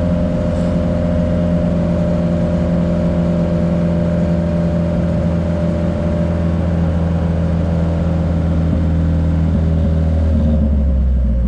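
Nissan S14's engine idling steadily while it warms up, its thermostat not yet opening. About ten and a half seconds in, the hum's pitch pattern shifts and the hiss above it drops away.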